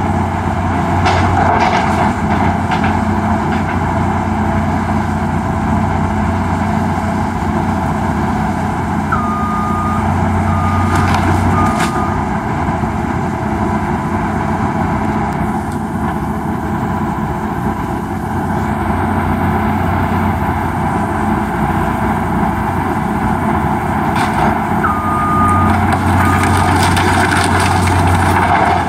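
Hydraulic excavator's diesel engine running steadily under load while its bucket tears into a wooden house, with scattered cracks and crunches of breaking wood. A short series of high beeps sounds about nine seconds in and again about twenty-five seconds in.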